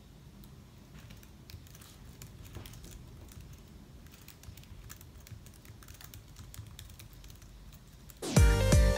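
Steady typing on a laptop keyboard, a quiet stream of quick key clicks. Loud music with a beat comes in just before the end.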